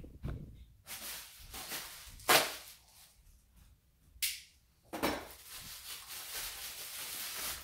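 Packaging being handled and opened: a few sharp snaps and cracks, the loudest a little over two seconds in, then steady crinkling of wrapping for the last couple of seconds.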